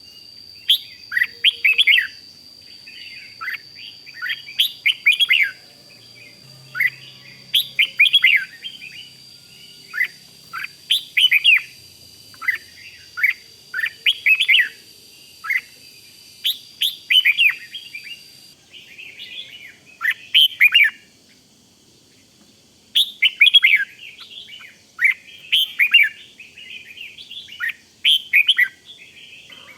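Red-whiskered bulbul singing its quick 'rik' call: short, bright, chattering phrases repeated every second or two.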